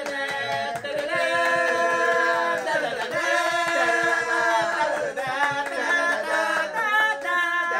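A group of voices singing held chords a cappella, the pitches shifting every second or so.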